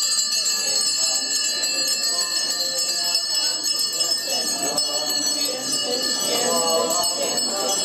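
Altar servers' hand bells jingling without a break, with many voices of the procession rising beneath them in the second half.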